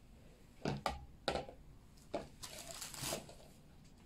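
Handling noises as a kitten is lifted and set into a plastic bowl on a kitchen scale: a few short knocks and scrapes about a second in, then a longer rustle around three seconds in.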